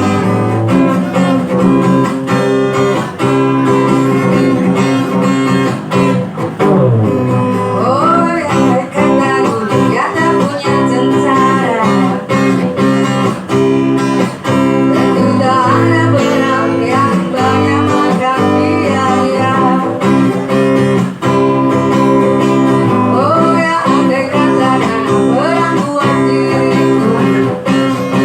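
Background music led by guitar, with a gliding melody line over steady held notes.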